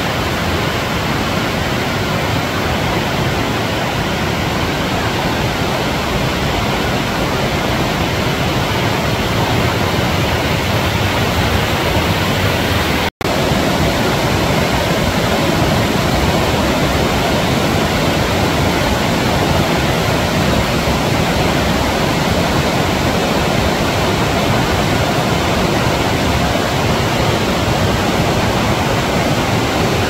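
Steady, loud rushing water, an even unbroken roar, cut off by a split-second dropout about thirteen seconds in.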